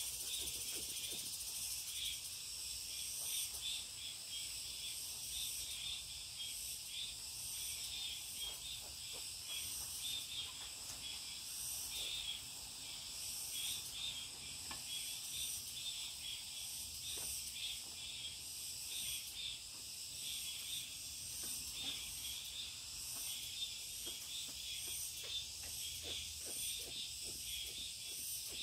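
A steady, high-pitched insect chorus with a pulsing rhythm, over faint scraping and tapping from a wooden stick working dry potato starch through a fine mesh sieve into a steel basin; the scraping comes thicker near the end.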